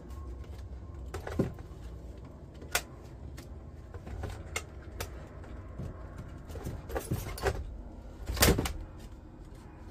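Plastic knocks and clatters from a flat-screen computer monitor being handled and its plastic stand base being taken off. The knocks are scattered, with a cluster around seven seconds in and the loudest about eight and a half seconds in.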